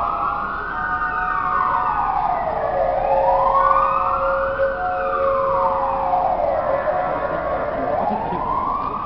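An emergency-vehicle siren wailing, rising and falling slowly about every four seconds. Under it are faint steady ringing tones from a street musician's glass harp of rubbed wine glasses.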